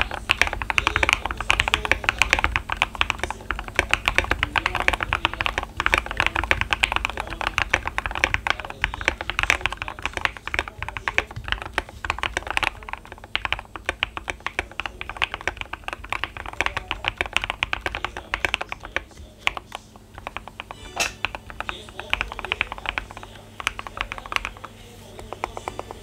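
Fast typing on a Keychron Q3 aluminium-case mechanical keyboard with lubed and filmed Gateron Black Ink V2 linear switches, lubed Durock V2 stabilisers and MA-profile keycaps, the case dampened with tape, switch pads and polyfill. The keystrokes come as a dense stream of clacks that thins out about two-thirds of the way through, with one sharper clack, then picks up again.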